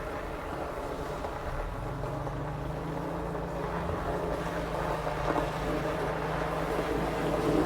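Lada Niva's engine running with a steady hum that grows gradually louder toward the end.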